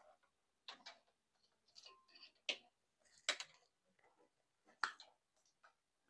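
Faint, scattered clicks and taps of a loose electrical wire and pliers being handled, about seven separate ticks with quiet between them.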